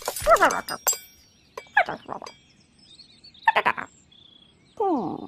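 Wire coat hangers clinking and rattling against each other as they are handled, in a few short clusters of metallic clicks. A short falling vocal sound from a cartoon character comes near the start and again near the end.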